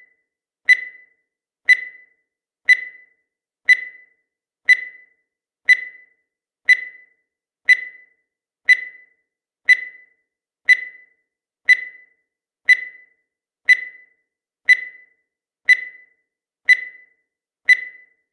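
Countdown timer sound effect: a short electronic beep once a second, each fading away quickly, about eighteen in a row.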